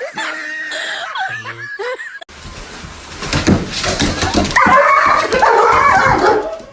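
A dog barking and whining loudly, with knocks and rustling from the camera being handled, starting just after a short stretch of high, wavering laughter.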